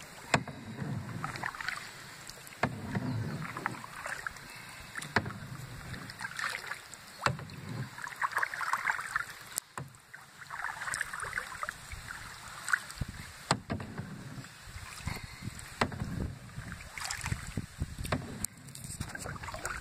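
Kayak paddles dipping into and pulling through calm river water, with splashing and dripping that swell and fade every couple of seconds with the strokes. Short, sharp knocks are scattered between the strokes.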